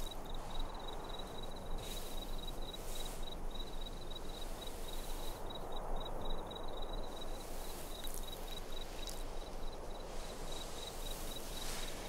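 Desert ambience: an insect chirping steadily in a fast, even pulse at a high pitch over a soft, steady hiss.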